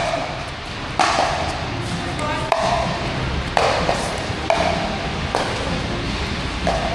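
Pickleball paddles hitting the plastic ball back and forth in a rally: a sharp, slightly ringing pop about once a second, six or seven times.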